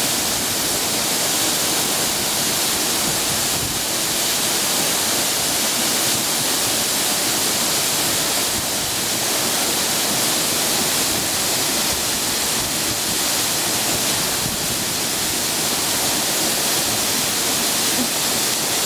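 Waterfall pouring down in a steady, even rush of falling water, with a strong hiss.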